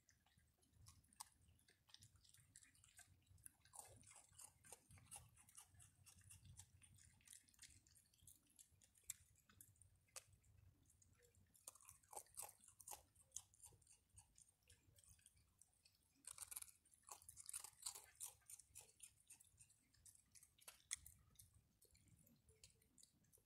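Raccoons chewing and crunching dry food: a faint, irregular run of crisp crunches and clicks, thickest around the middle and again a few seconds later.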